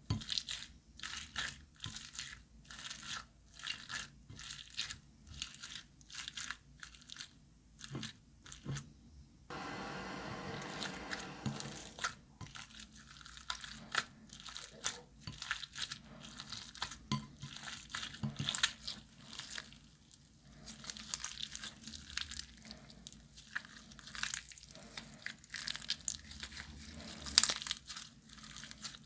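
Glossy slime being kneaded and pressed by hand, giving rapid crackling clicks and pops. About ten seconds in there is a steadier squelch lasting about two seconds.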